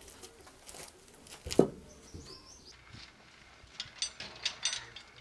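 Birds chirping faintly, with one sharp knock about a second and a half in and a few light clicks and taps near the end.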